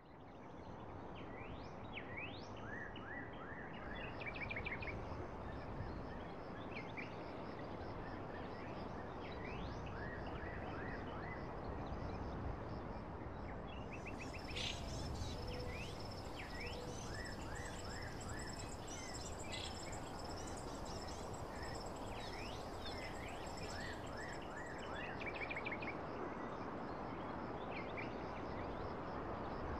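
Birds chirping and calling in many short, quick notes over a steady background hiss of outdoor ambience. About halfway through, a high, steady trill joins in.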